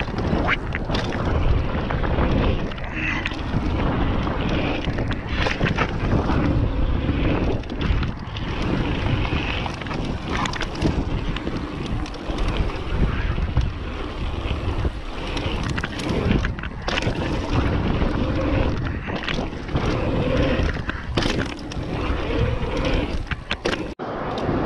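Wind buffeting a GoPro Hero 7's microphone as a mountain bike rides down a dirt jump line, with tyre rumble and frequent knocks and rattles from the bike. The sound drops out abruptly for a moment near the end.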